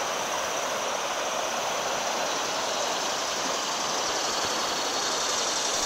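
River water rushing over shallow rapids: a steady, even hiss of flowing water.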